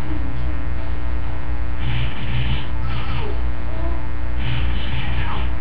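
Loud, steady electrical buzz like mains hum on the audio line, with faint intermittent hiss and faint wavering sounds above it.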